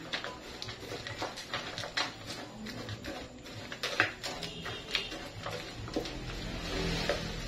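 A spoon stirring and scooping a dry granola-bar mix of nuts and flakes in a plastic tub: irregular scraping and clicking of the spoon against the plastic, with the dry pieces rustling.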